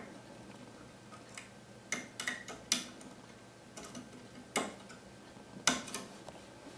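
Scattered sharp clicks and taps, the loudest about two, three, four and a half and nearly six seconds in, from cable connectors and parts being handled and pushed into place inside a DLP rear-projection TV.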